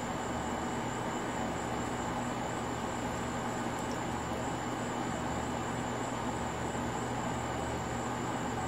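Steady, unchanging outdoor night background: a continuous low hum and hiss with a thin, even high tone on top, no distinct events.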